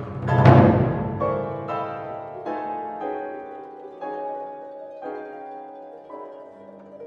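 Contemporary classical chamber ensemble music: a loud crash about half a second in, then single pitched notes sounding every half second to a second, each starting sharply and ringing away, the whole passage growing quieter.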